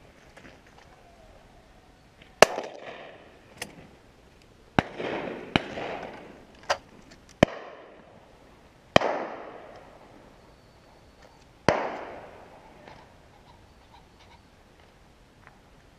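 Shotguns firing at driven game birds: about six sharp shots spread over the first twelve seconds, with a few fainter distant ones between, each shot trailing off in an echo.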